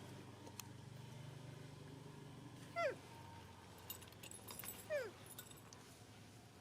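Macaque giving two short calls, each sliding down in pitch, about two seconds apart.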